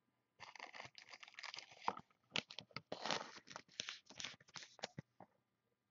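Trading cards being flipped through by hand, card stock sliding and scraping against card stock in a faint run of quick rustles that stops about five seconds in.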